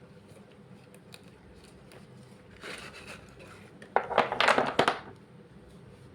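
Slate pencils and their packaging being handled: a soft scrape, then about a second of loud, crisp clicking and crackling about four seconds in.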